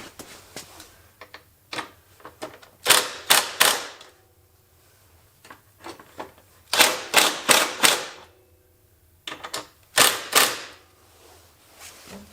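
Craftsman impact tool hammering in short rattling bursts as it runs the headlight mounting bolts down tight: a group of three bursts about three seconds in, four more about seven seconds in, and two near ten seconds, with light clicks between.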